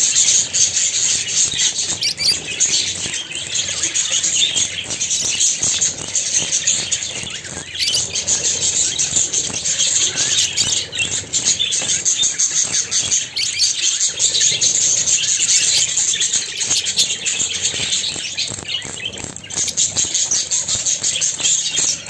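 A flock of budgerigars chattering and chirping without pause, many birds' calls overlapping into a dense warbling.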